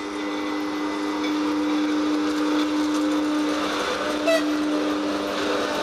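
Class 162 electric locomotive pulling a passenger train away, its electrical equipment and traction-motor blowers giving a steady whine over fan noise as it passes. A brief sharp squeal comes about four seconds in.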